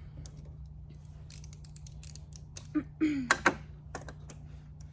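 Clicks, knocks and creaks of the oil filter canister being unscrewed and lifted out of its housing, with a cluster of louder knocks about three seconds in.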